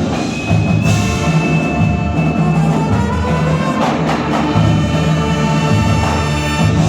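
Marching band playing, with held chords over a steady beat of low drums.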